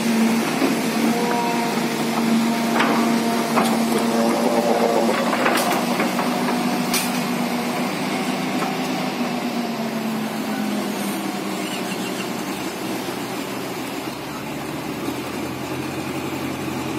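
Doosan excavator's diesel engine running steadily under load as it drags a stripped excavator undercarriage across the ground, with a few sharp clanks between about three and seven seconds in. The engine eases off somewhat in the second half.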